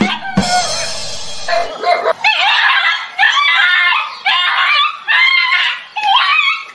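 A dog barking and yelping over and over in short, ragged, high-pitched calls, with a harsh, noisy burst near the start.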